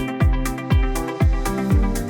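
Background music with a steady beat: a kick drum about twice a second, crisp ticks of cymbal between, and sustained instrumental notes.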